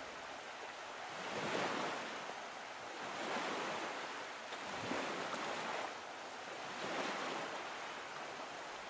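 Soft sea waves washing, rising and falling in four slow swells.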